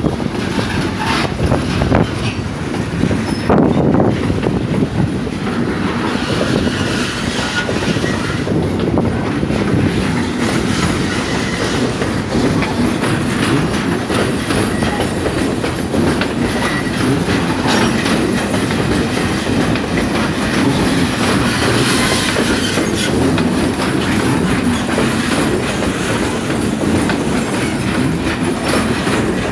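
Freight train of copper-concentrate container wagons rolling steadily past: a continuous rumble of steel wheels on the rails with a repeated clickety-clack as the wheels cross rail joints.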